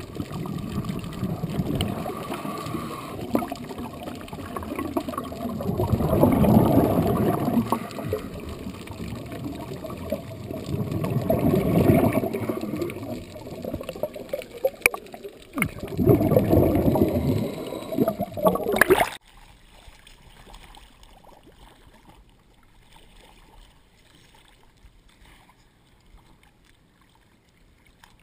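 Water sloshing and gurgling close to the camera housing, swelling and fading every few seconds, then dropping away suddenly about two-thirds of the way through to a faint hiss.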